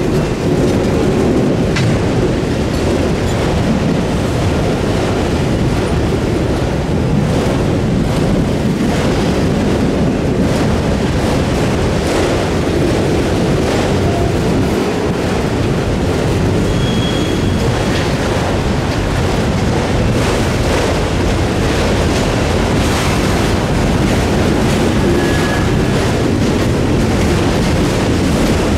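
Freight train cars rolling past at close range: a loud, steady rumble of steel wheels on rail with repeated clicking. Two brief high wheel squeals come up, one just past the middle and one near the end.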